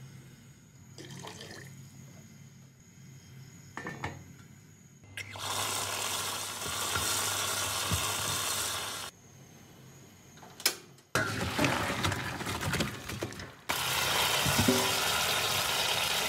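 Kitchen tap spraying water into a stainless steel sink while leafy greens and then pork bones are rinsed under it by hand. The water runs in two long spells, the first starting about five seconds in, with a short lull and a click between them; the opening seconds are quiet apart from a few clicks.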